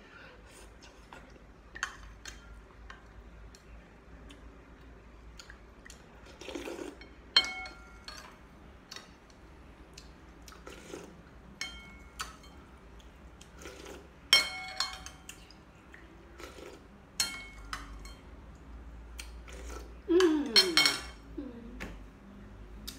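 Metal spoon and chopsticks clinking against a ceramic noodle bowl while eating: scattered light taps, a few of them sharp, ringing clinks, with softer slurping and chewing between. A brief vocal sound comes near the end.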